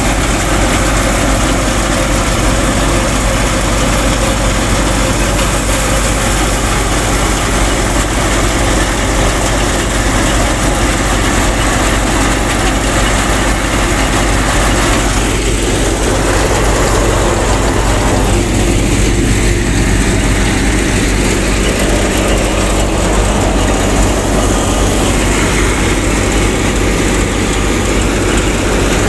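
Miniature belt-driven wheat thresher running steadily, its drum and pulleys threshing wheat, with a constant low hum under a broad rushing noise.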